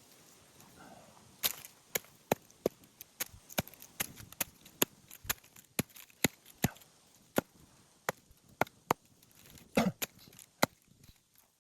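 Dry firewood being broken up for a campfire: a string of sharp wooden cracks, about two a second, starting a second or so in, with the loudest cracks near the end.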